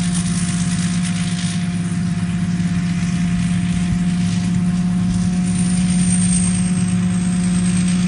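Rice combine harvester running steadily as it cuts and threshes the crop: a constant low engine drone with a high hiss over it.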